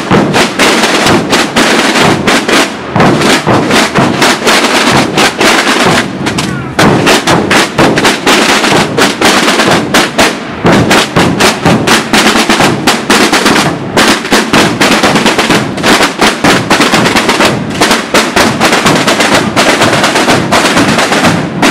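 A marching group of many drummers beating snare-type drums and large rope-tensioned bass drums together in a loud, dense rhythm of quick strokes, the tambor-and-bombo drumming of an Aragonese drum group.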